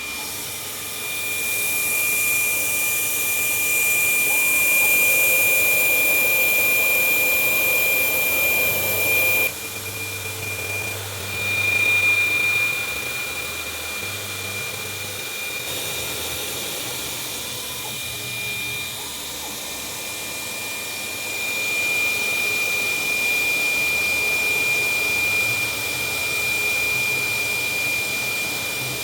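Milling machine running an end-mill finishing pass on a small part: a steady high spindle whine over a hiss of cutting noise. The sound changes abruptly about nine and a half seconds in, then swells again later.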